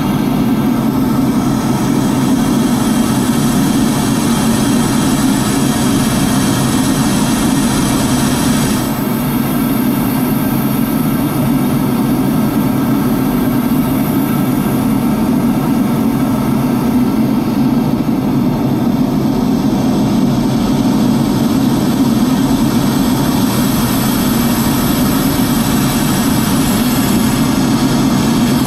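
Steady engine and airflow roar of a chase aircraft heard from inside its cabin in cruise flight, strongest in its low hum, with no change in power.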